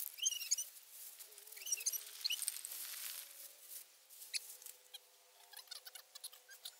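Aerosol spray-paint can hissing for about three seconds, then stopping, with birds chirping throughout. Light ticks and rustles near the end as paper sleeves are handled.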